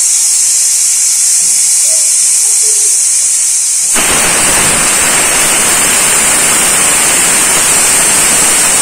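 A Prestige aluminium pressure cooker on a gas flame hisses steadily with escaping steam. About four seconds in, its whistle weight lifts and steam rushes out in a loud, fuller whoosh. This is the cooker's whistle, the sign that it has reached full pressure.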